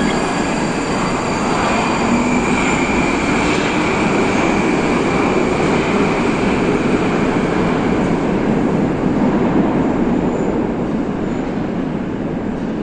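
Moskva 2020 metro train pulling out of the station and running off into the tunnel: a steady rumble of wheels on rail with a high whine over it in the middle, growing a little fainter near the end as the train moves away.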